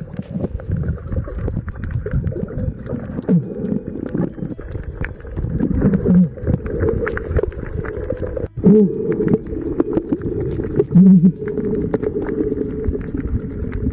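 Muffled underwater noise while snorkeling: water rushing and bubbling with many small clicks, and a short low tone every two to three seconds.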